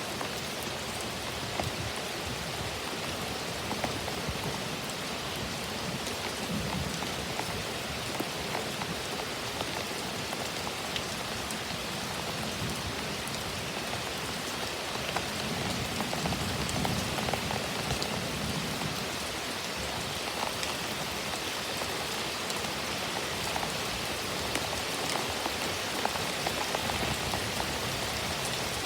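Heavy thunderstorm rain falling steadily, a dense patter of drops, swelling a little about halfway through.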